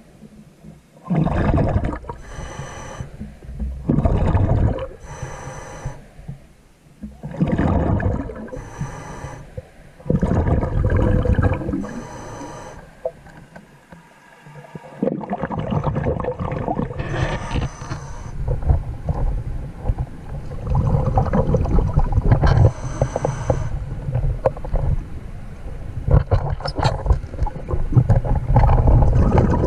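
A diver breathing underwater through a scuba regulator: a hissing inhale alternating with a rumbling rush of exhaled bubbles, about every two to three seconds. From about halfway through, a steadier low rumbling noise takes over.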